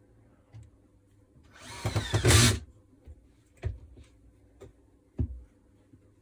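An electric power-tool motor whirs briefly, rising in pitch for about a second before cutting off abruptly. Two sharp knocks of parts being set down on the workbench follow.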